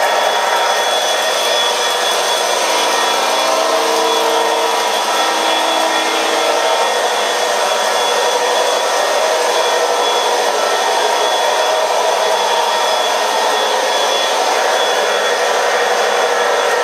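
MTH O gauge three-rail model trains running on the track: a steady rolling rumble of wheels and motors on the metal rails. A held chord-like tone sounds from about three seconds in to about six and a half seconds.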